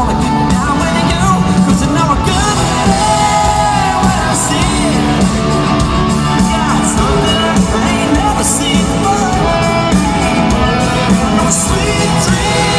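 Live country-rock band playing at full volume with a male lead vocal singing over it, heard in a large hall.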